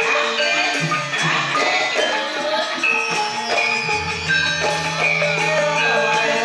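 Javanese gamelan playing a Banyumasan gending (uyon-uyon): bronze metallophones and gong-chimes ring steady interlocking notes. A deep low note comes in about four seconds in and rings on.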